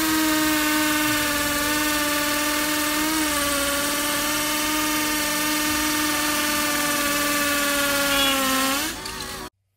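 Bosch 36V cordless drill running steadily at full speed as it drills into a block, a high motor whine that sags briefly about three seconds in. Near the end the whine drops in pitch as the motor winds down and stops.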